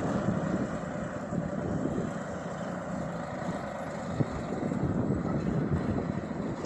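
Steady highway traffic noise: trucks and cars passing on the road, louder for a while in the second half.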